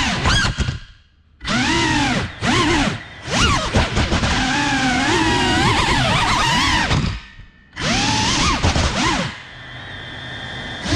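Small drone's electric motors and propellers whining, the pitch rising and falling as the throttle changes. The motors drop almost out twice, about a second in and again past the middle, and run quieter near the end.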